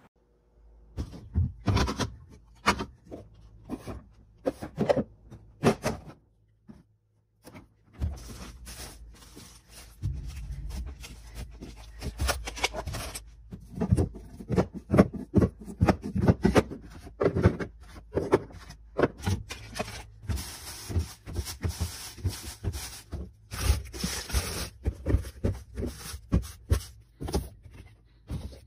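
Fridge restocking and organising sounds: a run of knocks, clicks and taps as containers and packaged items are handled and set down, with rustling and scraping between them and a low steady hum underneath. The sounds stop for a second or two about six seconds in, then carry on.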